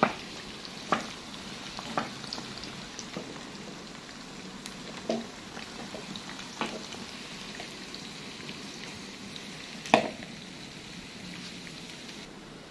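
Potato chips deep-frying in hot oil: a steady sizzle, thinning near the end. Several sharp kitchen clacks break through it, the loudest about ten seconds in.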